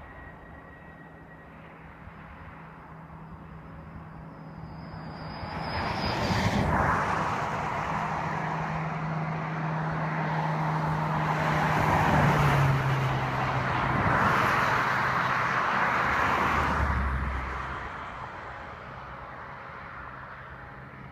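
A motor vehicle passing close by. Its sound swells over a few seconds and holds, and its hum drops in pitch about halfway through as it goes past, then fades away.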